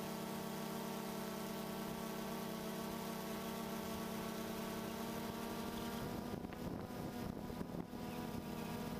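Motors and propellers of a DJI Phantom 2 quadcopter running with a steady multi-toned hum, picked up close by the GoPro on the drone; about six seconds in the hum wavers and turns choppy as the motor speeds shift.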